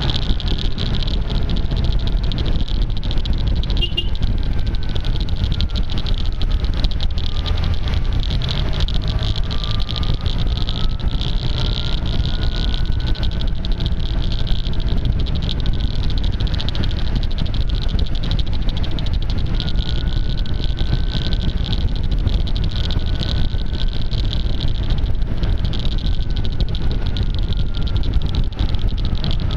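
Riding noise from a camera suction-mounted on a maxi-scooter at road speed: a steady rumble of wind and engine, muffled by tape over the microphone, with a constant fast clicking crackle that the tape causes. A faint whine rises and falls under it.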